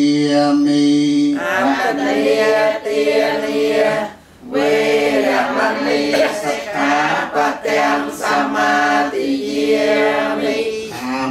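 Congregation of Buddhist lay people chanting together in unison, a devotional chant sung on a few steady pitches. It opens on one long held syllable, with a short break for breath about four seconds in.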